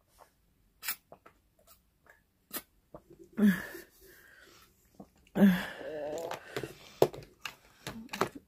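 A person's mouth noises: scattered sharp clicks and smacks after a drink, and twice a wordless voiced sound, short about three and a half seconds in and longer about five and a half seconds in.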